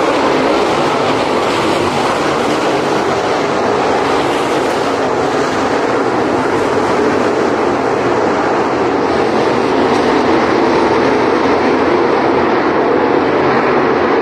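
A pack of dirt late model race cars running at speed on a dirt oval: many V8 engines blending into one steady, dense drone.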